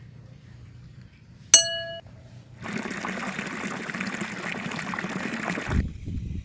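A single ringing clink, like metal or glass being struck, then liquid pouring steadily into a container for about three seconds, stopping abruptly.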